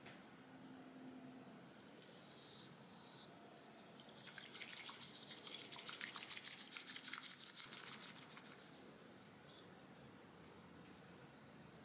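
Bamboo matcha whisk (chasen) scraping and swishing through tea in a ceramic bowl: a few slower strokes, then rapid back-and-forth whisking that builds for several seconds and fades, whipping the matcha into a froth.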